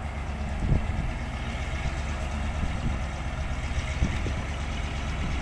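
Heavy truck's diesel engine idling steadily, with a couple of short knocks about a second in and near the end.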